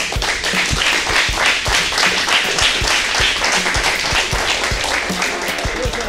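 Clapping and applause over background music with a steady low beat.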